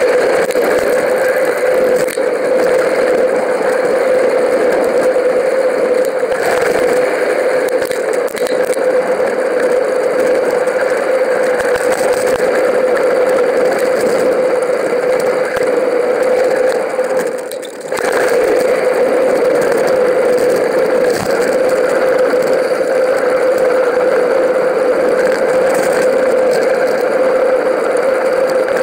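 Steady wind and tyre noise from a mountain bike ridden on tarmac, picked up by a camera carried on the bike or rider, with a constant hum. It dips briefly about two-thirds of the way through.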